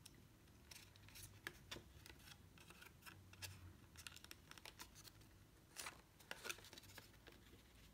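Faint, scattered rustles and light taps of cardstock being handled and pressed together as a glued insert is set into a paper box card.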